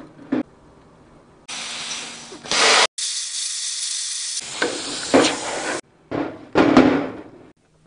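Plasma cutter hissing steadily as it cuts through steel plate. It breaks off for an instant about three seconds in, resumes, and stops just before six seconds. A few loud short knocks follow.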